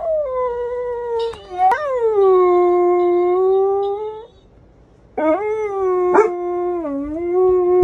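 A dog howling: two long howls. The first slides down from a high start and then holds steady. The second begins about five seconds in.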